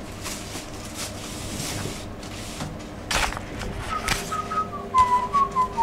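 A run of short, clear whistled notes stepping down in pitch, starting about four seconds in. Before it come a couple of knocks.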